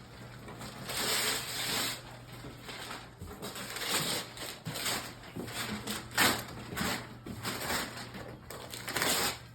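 Gift wrapping being torn off a box and crumpled, in irregular rustling and crackling bursts.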